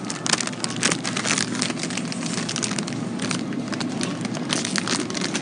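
Dense, irregular crackling and rustling handling noise over a steady bed of store background noise, with frequent sharp clicks.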